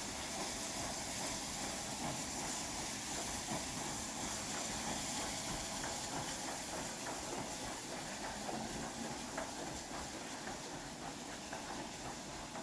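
Steam locomotive hissing steam, a steady rushing noise with a few faint ticks, growing slowly fainter near the end.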